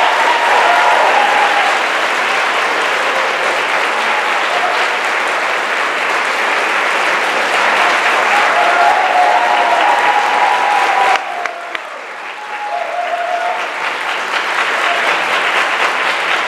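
Audience applauding. The applause drops suddenly about eleven seconds in, then builds up again.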